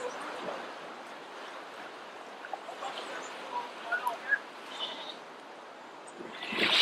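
Outdoor ambience with a steady low hiss and scattered short bird chirps in the middle. A louder, rushing sound swells up at the very end.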